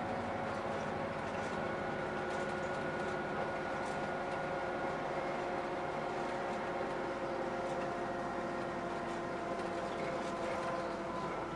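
Inside a Keikyu route bus under way: a steady engine and drivetrain hum with several held whining tones, and a few light rattles from the cabin.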